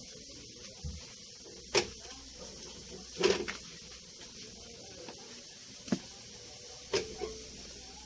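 Sharp clicks and knocks from a dump truck door's hinges and lock mechanism being worked, five in all, the one about three seconds in the loudest and longest.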